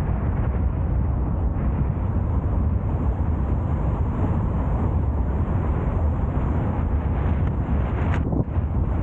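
Car driving along a road: a steady low rumble of wind buffeting the microphone over road and tyre noise. A brief high-pitched chirp comes about eight seconds in.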